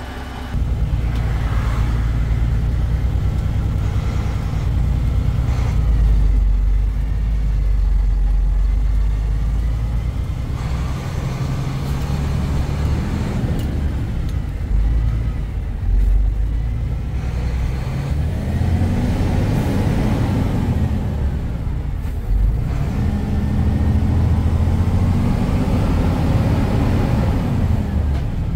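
Diesel engine of a FAW dump truck heard from inside the cab, driving on a rough dirt track: a steady low rumble, with the engine note rising and falling twice in the later part.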